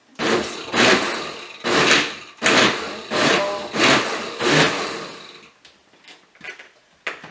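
Electric blender/food processor pulsed in short bursts, about one a second, chopping canned tomatoes, jalapeños and onion into a chunky salsa; the pulsing stops about five seconds in.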